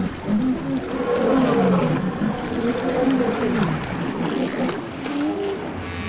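A herd of walruses calling over one another: many low calls that bend up and down in pitch, with a few sharp clicks among them.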